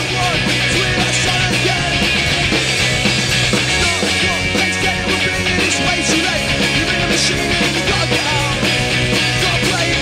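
A punk rock band playing live: electric guitars and a drum kit going at full pace in a loud, steady rock passage.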